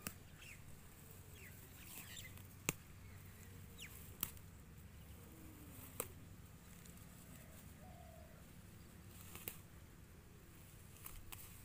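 Kulekhara greens (Hygrophila auriculata) being picked by hand: a few sharp snaps of stems breaking and faint rustling of the leaves, spaced a second or two apart.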